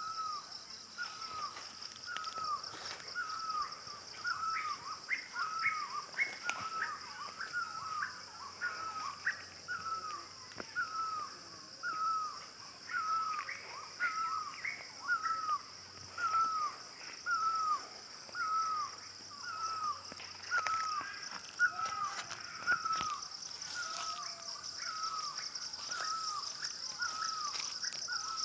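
A bird calling one short, hooked note over and over, a little more than once a second, over a steady high-pitched whine.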